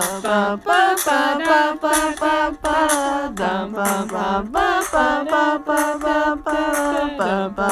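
Vocal music: female voices singing a quick run of short notes, with no words the recogniser could make out.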